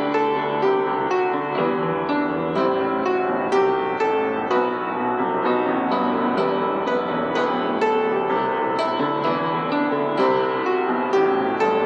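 Piano playing an instrumental passage, a steady run of struck notes over sustained chords.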